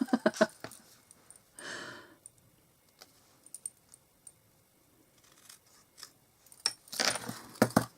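Paper-crafting handling sounds: sharp little clicks and snips of card and craft supplies being worked by hand, in a quick flurry at the start and again near the end, with a short swish between.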